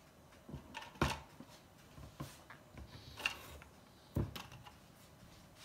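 Kitchen knife cutting a block of butter on a cutting board: a few scattered knocks and clicks as the blade meets the board, the loudest about a second in and again about four seconds in.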